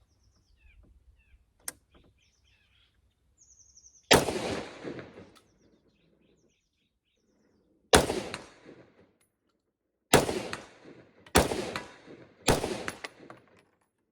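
Five rifle shots, each a sharp crack that rings out for about a second. The first comes about four seconds in and the gaps shorten, so the last three come roughly a second apart. Faint bird chirps can be heard before the first shot.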